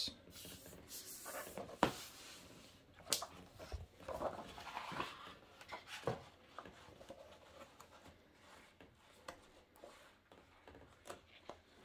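Large glossy pages of a heavy hardcover book being turned and handled: soft paper swishes with a few sharp taps and light knocks.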